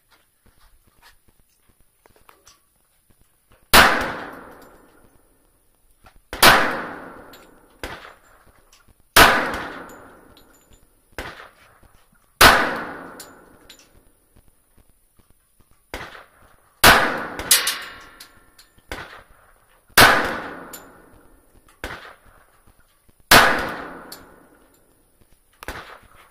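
A PARA Black Ops 1911 .45 ACP pistol fired seven times in slow, deliberate single shots roughly three seconds apart, starting about four seconds in. Each shot is a sharp crack followed by an echo that dies away over about a second. A few much fainter sharp cracks fall between them.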